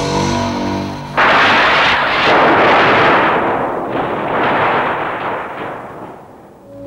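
Background music with held notes is cut off about a second in by a sudden loud rushing noise. The noise surges in waves for about five seconds, then fades away.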